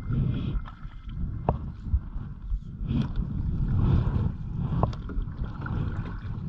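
Canoe being paddled: paddle strokes swishing and splashing through the water, with wind rumbling on the microphone and a few sharp clicks.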